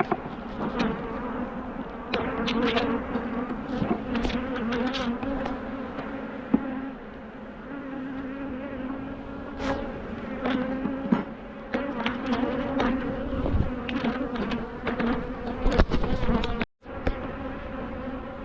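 Honeybees buzzing around an open hive, a steady hum, with occasional sharp clicks and knocks. The sound cuts out briefly near the end.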